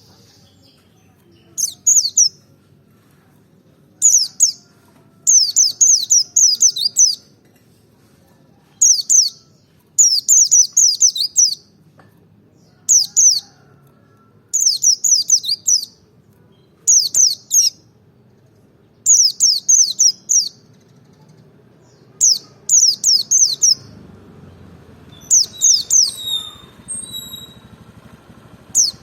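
White-eye (pleci) singing in short, high-pitched twittering phrases, each a quick run of falling chirps, repeated every second or two with short pauses between. Near the end a few different, longer whistled notes join in.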